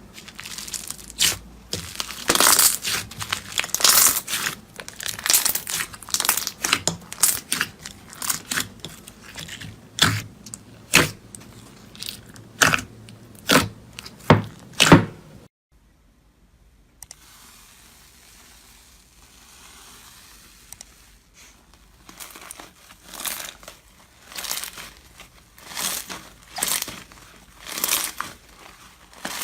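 Slime being handled for ASMR: dense sharp crackles, pops and tearing sounds for about fifteen seconds. After a short break, a quieter second stretch has regular strokes about every second and a half.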